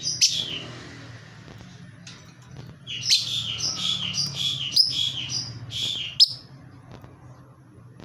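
Lovebird calling: one shrill call at the start, then after a pause a rapid run of high, shrill chirps lasting about three seconds. Two sharp clicks sound within the chirping, and a faint low hum runs underneath.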